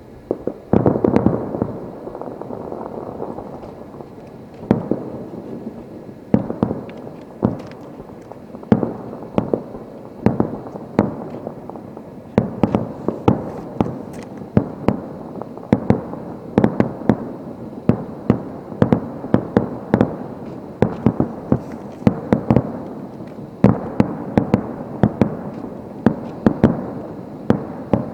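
Aerial fireworks shells bursting in rapid, irregular succession: sharp bangs, at times several a second, over a continuous rumble of overlapping explosions and their echoes, with a dense cluster of bangs about a second in.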